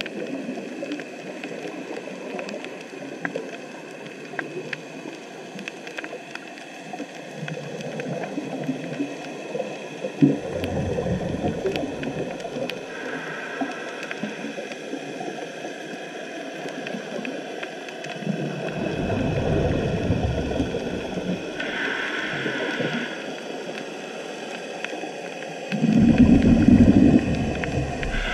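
Scuba regulator breathing heard underwater through a camera housing: short hissing inhalations and exhalations of rumbling bubbles, about three breaths. Steady faint crackling of the reef runs underneath.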